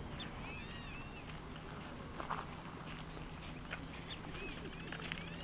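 Wild birds calling in short arched chirps, a cluster near the start and more near the end, over a steady high insect drone, with a few sharp clicks.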